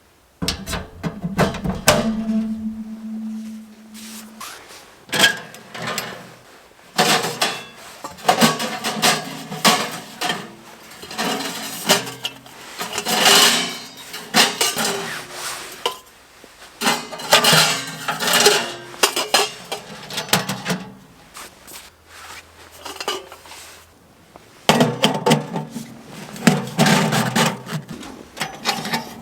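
Metal camp cookware and gear being handled, clinking and clattering in irregular bursts of knocks with short pauses between.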